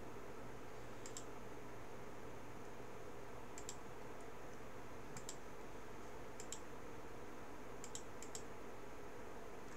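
Computer mouse clicking, short sharp clicks, several in quick pairs, every second or two, over a faint steady hum.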